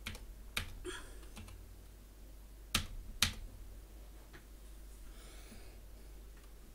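A handful of separate computer keyboard key presses, the two loudest half a second apart a little before the middle, then a faint short rustle.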